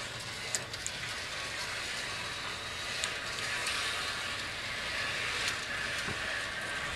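Window panel track's wheeled gliders rolling along the track as a shade panel is drawn back across with its wand: a steady quiet rolling hiss with a few faint clicks. This is the track with four gliders per panel, meant to cut the drawing noise.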